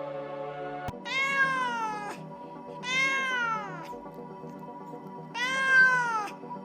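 Cat meowing three times, each call rising and then falling in pitch, over steady background music.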